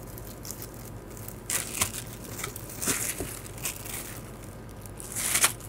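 Clear plastic packaging bag around a paddle board fin crinkling as it is pulled open and handled, in short scattered rustles, the loudest just before the end.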